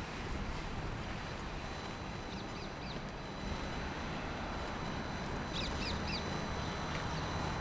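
A bird calls twice, each time with three quick high chirps, a few seconds apart, over a steady low hum of street ambience.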